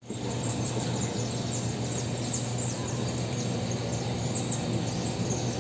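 Outdoor street ambience: a steady low hum under a background hiss, with many quick high chirps from small birds.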